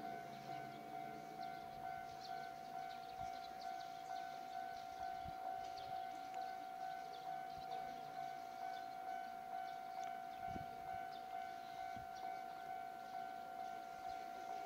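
Electronic railway warning alarm: a steady tone that pulses about twice a second.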